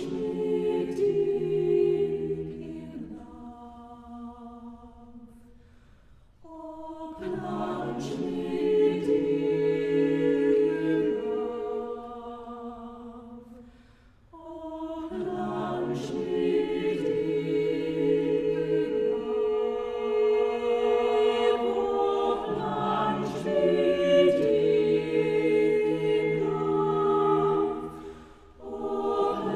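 Mixed chamber choir singing unaccompanied in sustained chords, in three long phrases that each swell and die away into a brief pause.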